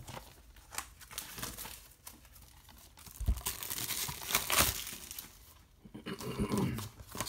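Plastic shrink-wrap being torn and peeled off Blu-ray slipcovers, crinkling and crackling unevenly, loudest about halfway through.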